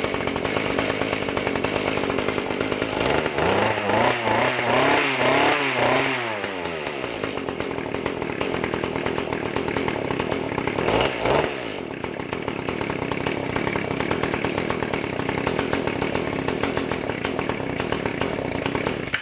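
Two-stroke engine of a Mantis tiller running on its freshly fitted carburetor, revved up and down several times a few seconds in and once more about halfway through, otherwise holding a steady speed.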